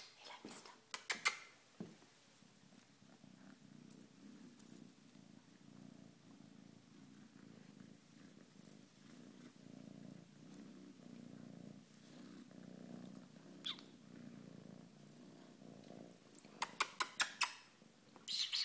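Ginger-and-white kitten purring steadily close up, a low even pulsing rumble. A few sharp clicks come at the start and a quick run of them near the end.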